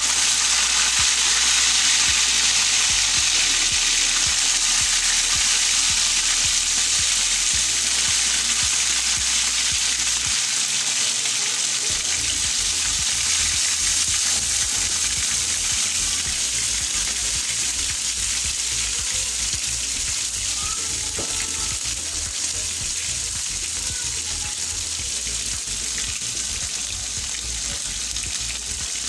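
Boiled beef pieces frying in hot oil in a tawa: a loud, steady sizzle, strongest in the first few seconds and then slowly easing.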